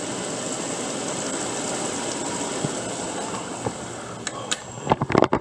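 Heavy rain pouring steadily during a thunderstorm. Near the end it is joined by a run of irregular sharp cracks and knocks.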